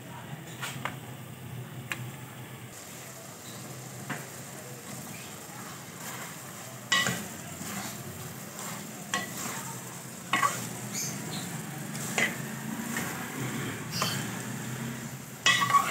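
Sliced ridge gourd and chicken masala frying in an aluminium pot, sizzling steadily while a steel spoon stirs it, with an occasional sharp clink of the spoon against the pot, about every second or two in the second half. The vegetable is being bhuna-fried in the masala.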